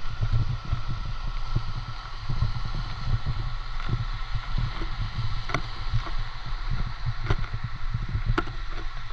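Wind rumbling on the microphone over the steady wash of small waves breaking on a sand beach, with a few short clicks scattered through.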